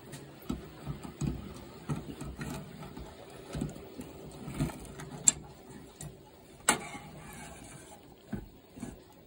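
Metal carburetor parts in a wire dip basket clinking and knocking against a metal can of carburetor cleaner as the basket is lowered and pushed down into the liquid to soak. Irregular clicks and knocks, the sharpest a little past five seconds in and again near seven seconds.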